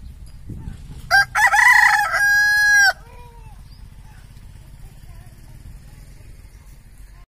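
A rooster crows once, about a second in: a loud call of roughly two seconds that ends on a long held note.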